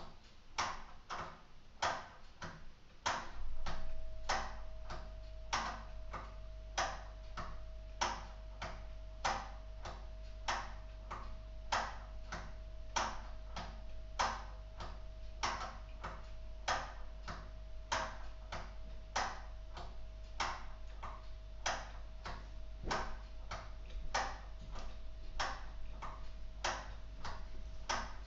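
Escapement of a purely mechanical LEGO Technic cuckoo clock ticking steadily, about two sharp ticks a second, as its wind-up motor drives the clockwork.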